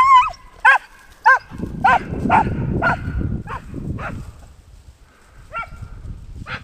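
German wirehaired pointer (drahthaar) whining and yelping in a run of short, rising-and-falling cries, about two a second at first and then a few spaced further apart. Dry grass rustles underneath through the middle of the stretch.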